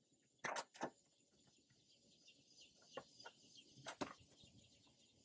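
A few sharp metallic clicks and taps from a hex key and small screws being fitted to the grill's metal side panel, loudest about half a second in and again near four seconds. Under them runs a faint steady chirring of insects.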